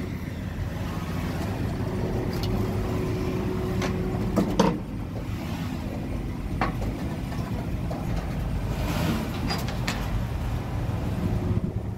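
SUV creeping up aluminium loading ramps onto a car-carrier trailer, its engine running at low revs, with a few metallic clunks from the ramps and trailer deck under the tyres, the loudest about four and a half seconds in.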